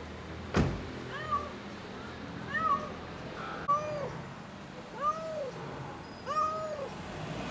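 A cat meowing five times, short calls about every second and a half, each rising and falling in pitch. A sharp knock sounds about half a second in.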